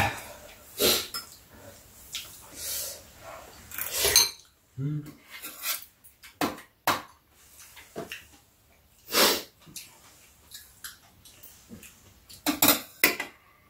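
Spoons and chopsticks clicking and clinking against ceramic bowls at irregular moments while two people eat soup, with a few short slurps.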